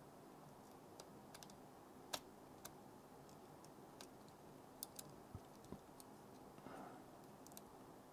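Faint, irregular small clicks and taps of fingers handling parts inside an open laptop, fitting the little protective cap back over the WiFi card's antenna connectors; the sharpest click comes about two seconds in, over near silence.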